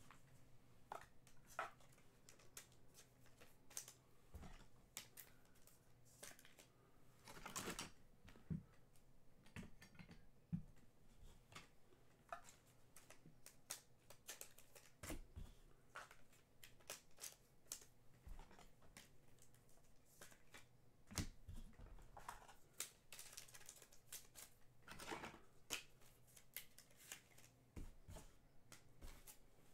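Faint handling of trading cards: scattered soft clicks, taps and rustles of cards being sorted and shuffled, a few slightly louder taps among them.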